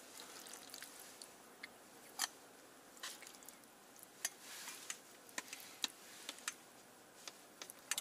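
Metal chopsticks clicking and tapping against a plastic food tray and a stainless steel cup while wet, spicy food is stirred and scooped: a string of small, sharp, irregular clicks.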